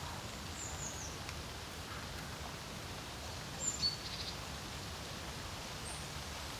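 Steady wind noise with a few faint, high bird calls over it: a short falling chirp about half a second in, a brief quick trill just before the middle, and a single high note near the end.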